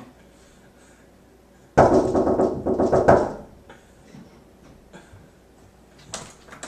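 Rapid knocking on a glass-paned door, a quick run of raps lasting about a second and a half.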